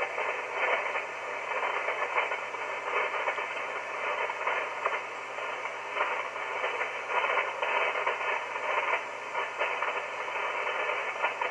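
Icom IC-7300 receiver playing empty single-sideband band noise between transmissions: a steady hiss confined to the narrow voice range, with faint crackles of static.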